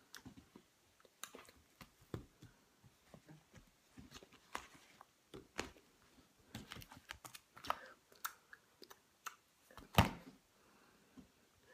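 Handling and movement noise: irregular soft clicks and taps, with one sharper knock about ten seconds in.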